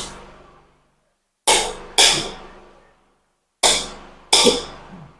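Wall light switches flipped on and off twice, each time two sharp clicks about half a second apart that echo briefly in an empty room.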